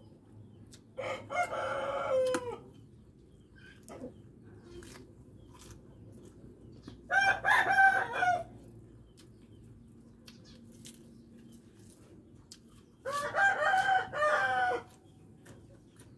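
A rooster crowing three times, about six seconds apart, each crow lasting a second and a half to two seconds.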